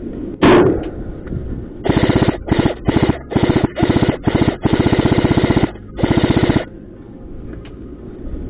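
Airsoft rifle firing full-auto in about eight short bursts of rapid, evenly spaced shots, the longest about a second, after a single sharp knock near the start.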